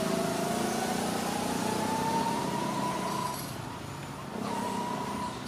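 A small engine running, its pitch rising slowly for about three seconds and then holding steady.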